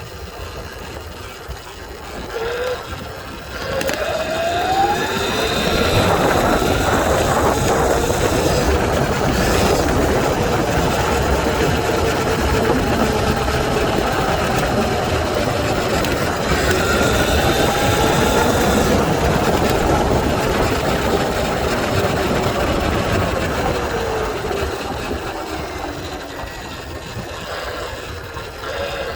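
Sur-Ron electric dirt bike's motor and mid-drive whining, rising in pitch as it accelerates a few seconds in, holding through the middle and falling as it slows near the end, then rising again. Wind rushes over the phone's microphone the whole time.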